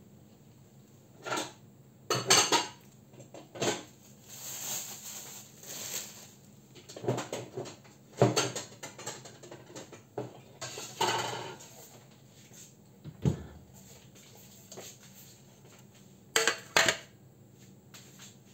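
Dishes clinking and clattering as they are taken out of a wall-mounted kitchen cabinet: an irregular run of separate knocks and clinks with a few short scrapes.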